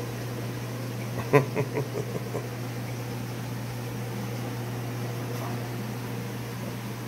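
Steady low hum of running reef-aquarium equipment. About a second in, a short run of about six quick pulses, the first loud and the rest fading away within about a second.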